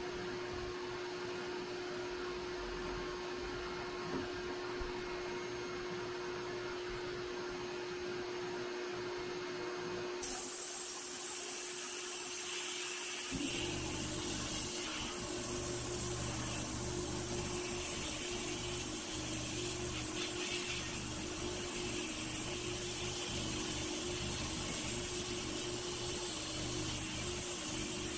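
Sandblast cabinet at work on a rusty pressed-steel toy airplane part: a steady hum from the cabinet's machinery, then about a third of the way in, the blast gun opens up with a loud, steady hiss of air and abrasive stripping rust from the steel.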